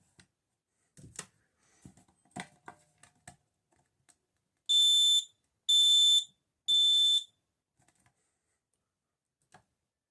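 Smoke alarm being tested: it sounds three loud, high-pitched beeps of about half a second each, one a second apart, the standard temporal-three alarm pattern. A few light clicks and knocks come before the beeps.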